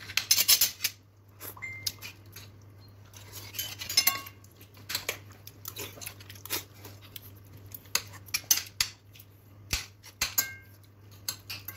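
Metal spoons and forks clinking and scraping against ceramic bowls and plates as food is served and eaten, in irregular sharp clinks, a few of them ringing briefly.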